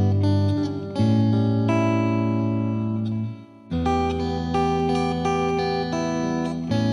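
Music: guitar playing slow plucked notes, with a brief drop in level about three and a half seconds in.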